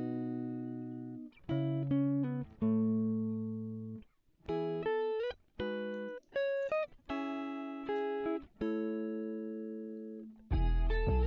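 Background music of slow, single plucked notes, each starting sharply and ringing out before the next. A fuller sound with a deep bass comes in near the end.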